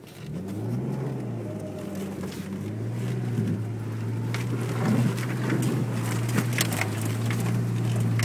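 A Jeep's engine pulls steadily under throttle through deep mud and water, its note coming up just after the start and growing louder. From about halfway on, mud and water slap against the windshield with sharp splats.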